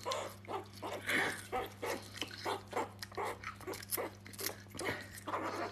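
Meerkat crunching on a celery stick: an irregular run of small, crisp crunches, several a second, over a faint steady hum.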